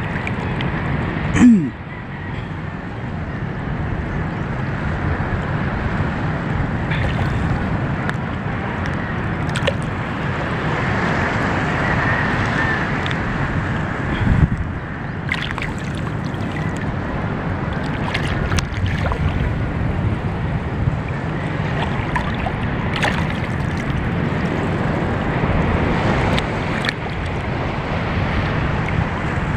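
Steady sloshing of sea water around a small boat, with wind rumbling on the microphone. A brief sharp knock comes about a second and a half in.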